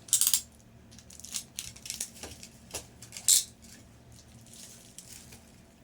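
Loose wristwatches clinking and rattling together as they are handled, with two louder jingles, one at the start and one about three seconds in, and lighter clicks between.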